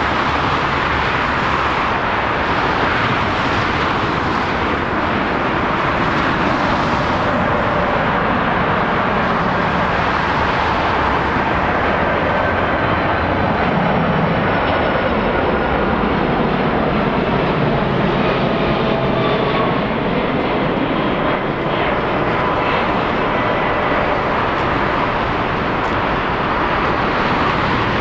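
Boeing 747-400 freighter's four jet engines running steadily on final approach, with landing gear down. A faint whine slides down in pitch around the middle as the jet passes close.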